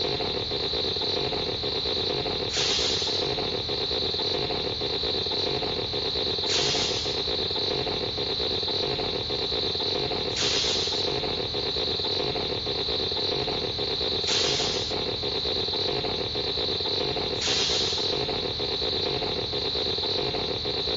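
Alien Baltan sound effect: a steady, noisy drone with a brief hissing swell about every four seconds.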